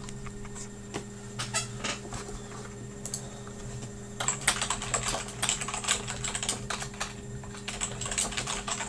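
Typing on a computer keyboard: scattered key clicks at first, then quick busy runs of keystrokes from about four seconds in. A steady low hum runs underneath.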